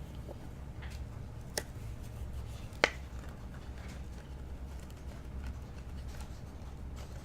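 Trading cards being handled and slid one behind another, with a couple of sharp little clicks, the louder one about three seconds in, over a steady low hum.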